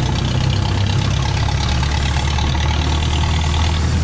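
Jeepney's diesel engine running steadily, a constant low drone, heard from inside the open passenger cabin with road noise.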